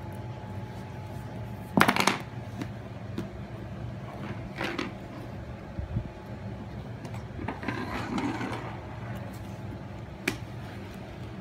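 A plastic hairbrush clattering onto a hardwood floor about two seconds in, followed by a few scattered light knocks as a baby crawls across the wood floor, over a steady low hum.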